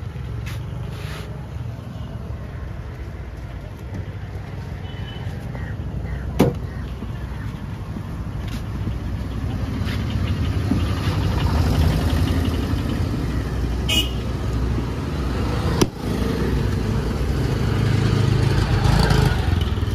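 Road traffic going by, a steady rumble of passing cars and motorbikes that swells twice, with a brief horn toot about two-thirds of the way through. Two sharp knocks stand out, one about a third of the way in and one near the end.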